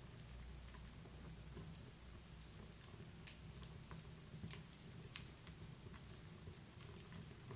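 Wood fire burning inside a stove: irregular sharp crackles and pops over a low rumble, with one louder pop about five seconds in.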